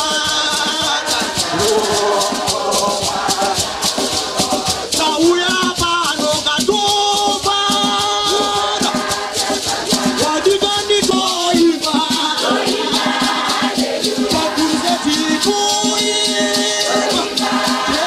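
A choir of men singing a gospel song, with hosho gourd rattles shaken in a steady rhythm.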